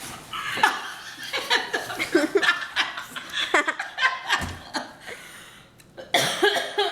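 Laughter in many short chuckling bursts, dying down briefly about five and a half seconds in and then starting up again.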